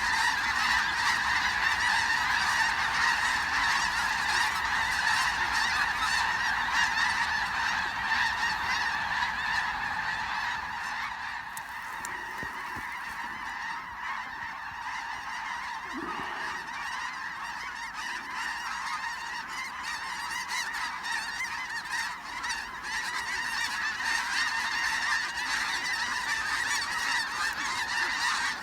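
A huge flock of snow geese calling overhead, a dense, unbroken mass of overlapping high honks. It thins slightly in the middle and swells again toward the end.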